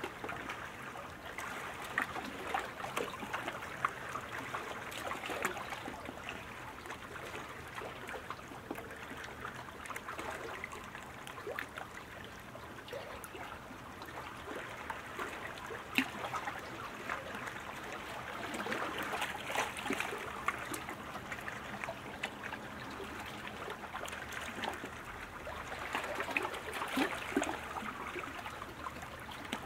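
Continuous rushing, splashing water noise with many small sharp splashes and clicks, swelling and easing a few times.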